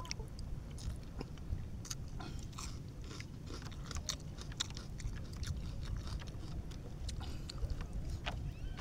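Close-up chewing of raw fish: many small, irregular wet clicks and crunches over a steady low rumble.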